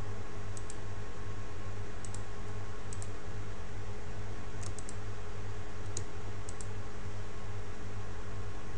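Sparse clicks of a computer mouse and keyboard, mostly in quick pairs about a second or so apart, over a steady low hum.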